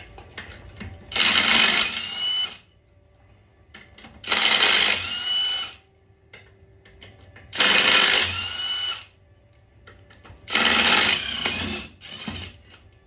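Power impact wrench run in four bursts of a bit over a second each, about three seconds apart, each ending in a short rising whine as it spins sockets on bolts.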